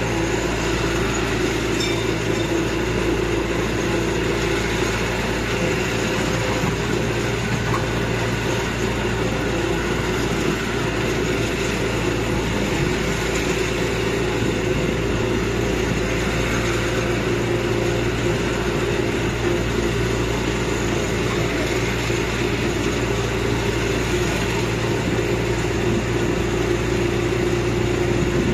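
Land train's engine running steadily, a constant low drone with road noise and no changes in pace.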